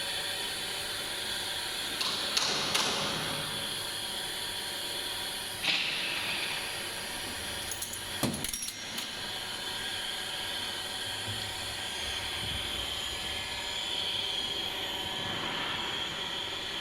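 Metal parts of a piston filling machine's pump and nozzle being handled during disassembly: a handful of short knocks and clinks spaced a few seconds apart, over a steady hiss.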